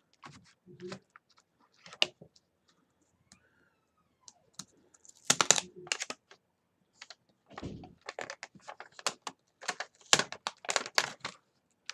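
Clicks, taps and clatter of a disassembled gaming keyboard's plastic parts being handled and pressed. There is a loud cluster about five seconds in and a quick run of clicks over the last four seconds.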